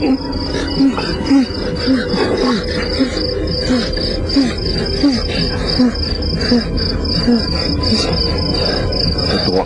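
Crickets chirping in a steady, fast, high trill, with a short low falling call repeating about every 0.7 seconds underneath.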